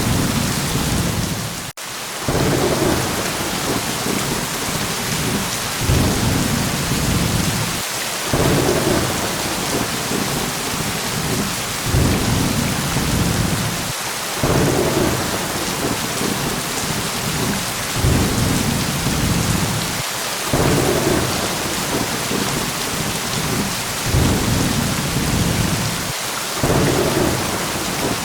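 Steady heavy rain with low thunder rumbles that swell and fade about every six seconds. Each cycle has a brief dip, in an evenly repeating pattern.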